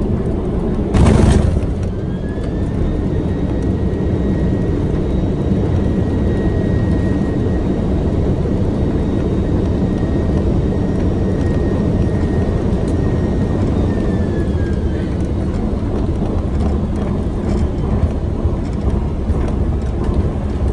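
Boeing 767-300 flight-deck noise through touchdown and landing rollout. A loud thump about a second in, then a steady rumble with a high engine whine that rises just after, holds, and falls away about fifteen seconds in.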